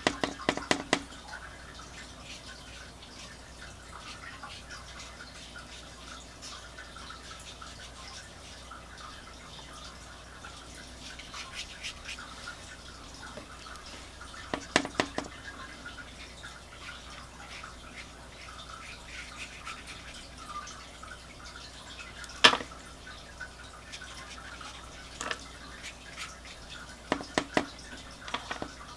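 Watercolour brush working paint over paper and palette with a soft scrubbing sound, broken by several clusters of sharp taps, the loudest a single tap about two-thirds of the way through.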